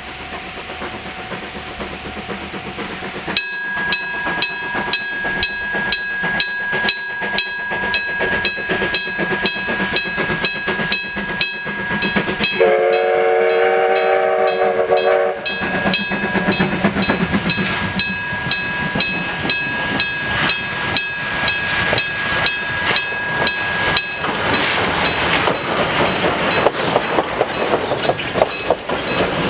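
Old electric-bell level-crossing alarm ringing in steady, evenly spaced strokes as a steam locomotive approaches. About halfway through, the locomotive's steam whistle sounds a chord for about three seconds. In the last seconds the train's wheels clatter over the rails as the passenger cars pass.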